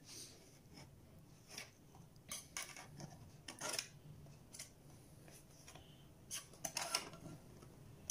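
A knife blade scraping along the inside of a steel loaf pan, loosening a baked cake from its sides, in short irregular strokes with the odd clink of metal on metal.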